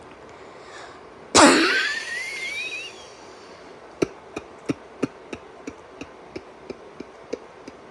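A person's deliberate, performed cough sequence: a loud wheezing breath with a whistle that rises in pitch. After it comes a run of about eleven little suppressed, muffled coughs, about three a second.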